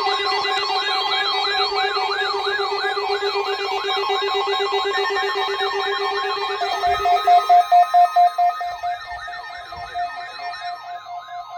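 Weather alert radio receivers sounding their alarms together, set off by a NOAA Weather Radio required weekly test: a fast warbling siren over several steady alarm tones. A burst of loud pulsed beeps comes about seven seconds in, and the lowest tone cuts out about then.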